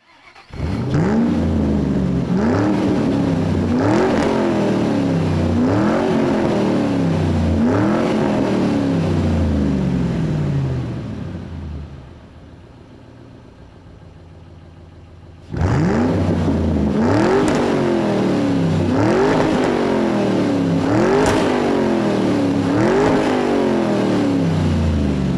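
Car engine revved over and over, each rev climbing quickly in pitch and then dying away, about once every second and a half to two seconds. The revving stops for a few seconds in the middle, then starts up again in the same rhythm.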